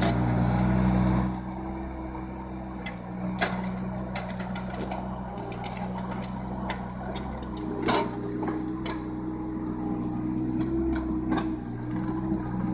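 Mini excavator's diesel engine running steadily, louder for the first second or so, with scattered knocks and clunks as the bucket shifts logs; the loudest knock comes about eight seconds in.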